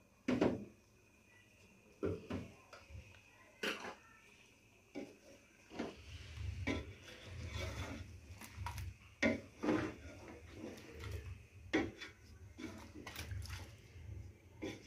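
Wooden spoon knocking and scraping against a steel cooking pot as chicken pieces are stirred with spices: irregular sharp knocks, with a low rumbling scrape joining in from about halfway through.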